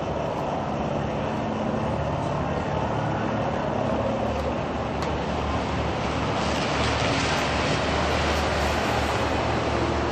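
Steady road traffic noise: a continuous low rumble with hiss and no distinct events.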